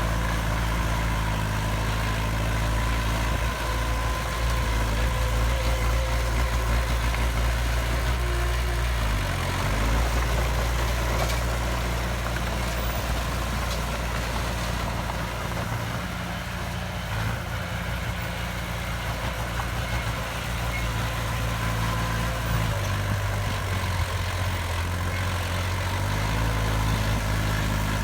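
Heavy diesel engine of construction machinery, a bulldozer or dump truck, running steadily. Its pitch dips briefly about a third of the way through and shifts up in steps near the end as the engine speed changes.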